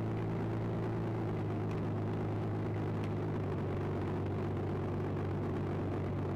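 Recorded Rolls-Royce Merlin V-12 engine sound idling steadily, played by the RC P-51 Mustang model's onboard sound module and amplifier to imitate the real warbird's engine.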